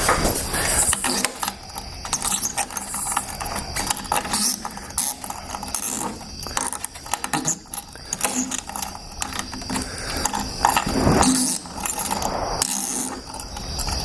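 Sliding glass door lock being worked back and forth, with irregular metal clicking and rattling; the mechanism is still stiff and hard to turn. Crickets chirp steadily behind it.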